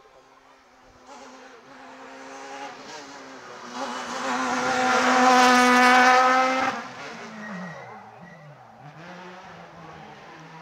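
Rally car passing at speed. Its engine note builds as it approaches and is loudest about five to six seconds in, then drops sharply as it goes by. The revs fall and rise a couple of times as it pulls away and fades.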